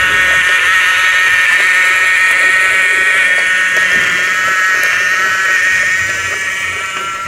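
A battery-powered toy train's small electric motor and gears whine with a steady high buzz as it pulls its wagons along wooden track. The whine gets quieter near the end.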